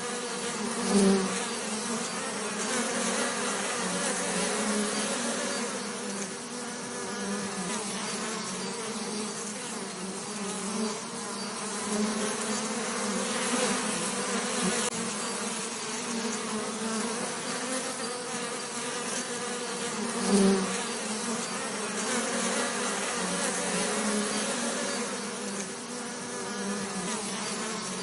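Bees buzzing steadily, a wavering hum with one or more bees passing close and louder about a second in and again around twenty seconds in.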